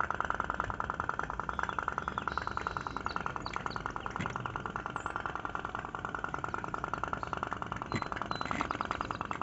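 Candle-fired tin pop-pop boat's pulsating steam engine putt-putting in a rapid, even rhythm, many pops a second, as the boat runs on the water.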